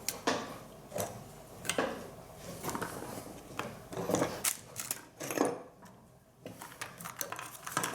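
Irregular knocks, clicks and short scrapes of small hard objects being handled, screws, tools or the aerated concrete block being moved about, with several louder knocks spread through.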